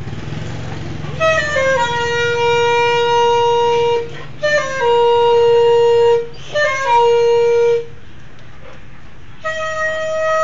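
Flute playing long held notes in four phrases with short gaps between them; each phrase steps down in pitch and then settles on a steady note.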